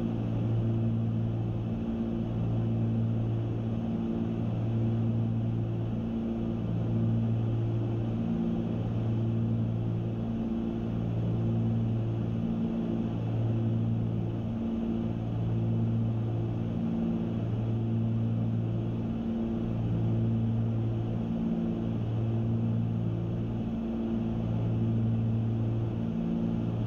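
Cessna 310's twin piston engines and propellers droning steadily in cruise descent, heard inside the cabin. The low hum swells and fades in a regular beat about every two seconds.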